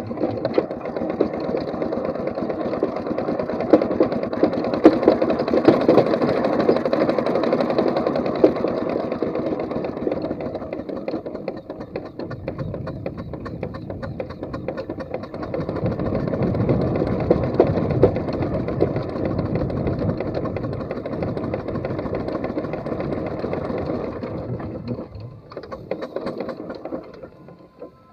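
4-inch scale McLaren steam traction engine running as it is driven, with a fast, even mechanical beat. The sound dies away over the last few seconds.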